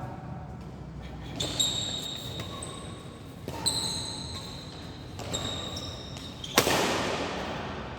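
Badminton rally in a large hall: four sharp racket hits on the shuttlecock, spaced one and a half to two seconds apart, the last one the loudest and echoing in the hall.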